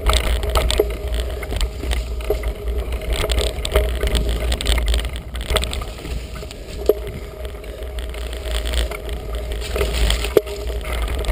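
Wind rumbling on a GoPro Hero 2's microphone as a mountain bike rides along a rough, muddy woodland trail. Scattered knocks and rattles come from the bike jolting over bumps.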